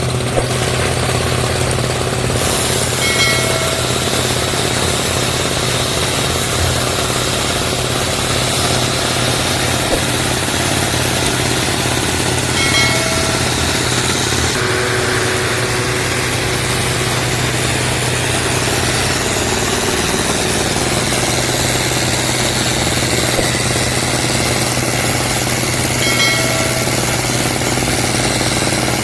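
Diesel engine of a drilling rig running steadily as the machine climbs a hill. A brief high tone sounds three times, about ten seconds apart.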